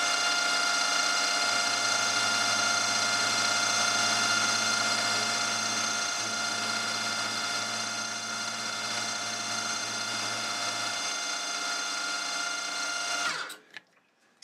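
Milling machine running with a steady multi-toned whine from its motor and spindle while a 6 mm carbide end mill cuts into the workpiece. The sound's low end changes about 1.5 s in and again about 11 s in, as the cut goes on. About 13 seconds in the machine is switched off and winds down.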